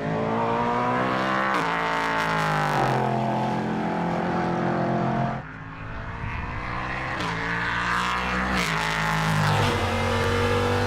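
Race car engine at full throttle, its note climbing and dropping sharply at each gear change. There is a brief drop in level about five and a half seconds in, then it pulls up through the gears again.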